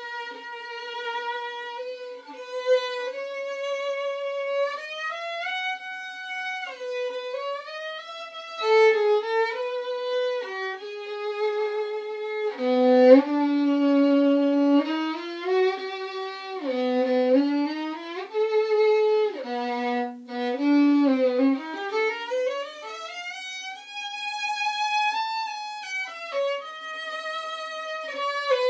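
Unaccompanied violin playing a melodic passage with vibrato on held notes. The line drops into the instrument's low register in the middle, then climbs in a long upward sweep about three-quarters of the way through.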